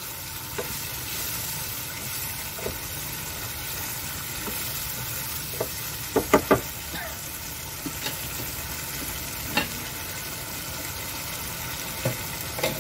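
Chilli sambal with squid sizzling in a frying pan as a wooden spatula stirs it, with occasional knocks of the spatula against the pan. A quick run of three knocks about halfway through is the loudest.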